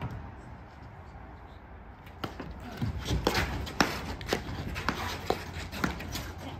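Platform tennis rally: a string of sharp knocks, roughly two a second, as the ball is struck by the paddles and bounces on the court, starting about two seconds in.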